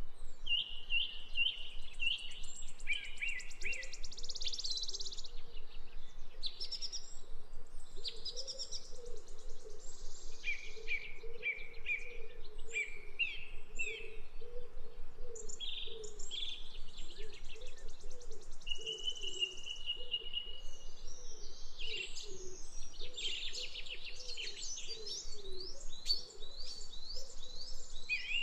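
Small birds chirping and twittering almost nonstop, with quick trilled runs of notes and a few longer held trills, over a softer, lower warbling underneath.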